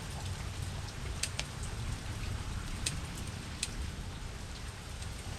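Steady rain falling, with a few sharper drops hitting a nearby surface scattered through it.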